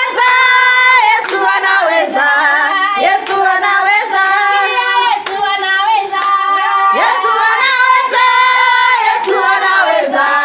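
A group of women singing together, with hand clapping about once a second.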